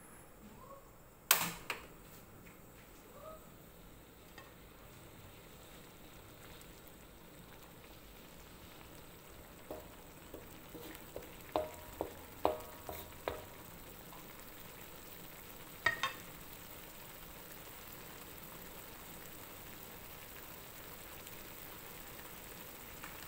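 Bamboo shoots and river fish sizzling and simmering in sauce in an aluminium wok, a steady hiss that slowly grows louder. A spatula knocks sharply against the wok once just over a second in, several times in quick succession near the middle as the food is stirred, and twice more a few seconds later.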